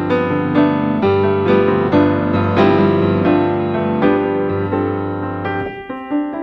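Background piano music: sustained chords and melody notes struck about twice a second, with the low bass notes dropping away near the end.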